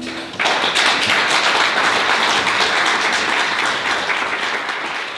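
The song's last chord dies away, and about half a second in an audience breaks into applause, which goes on and fades near the end.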